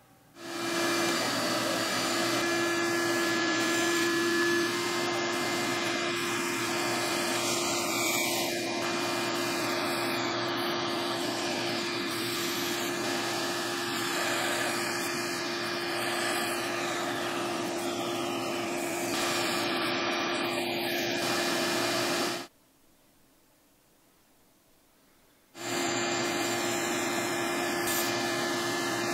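Benchtop band saw running and cutting a small wooden block: a steady motor hum under the blade's whirring noise. The sound cuts off abruptly for about three seconds near the end, then starts again.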